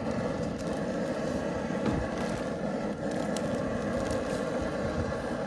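Steady rumble of the fire under a boiling cast iron jambalaya pot, with a wooden paddle stirring the thick rice mixture.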